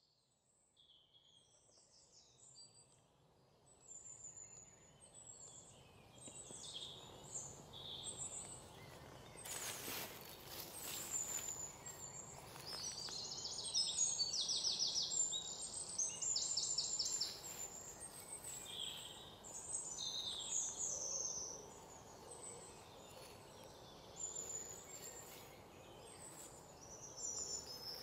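Several wild birds calling: short high chirps and quick trills, busiest in the middle, over a faint steady outdoor hiss. The sound fades in from silence over the first few seconds.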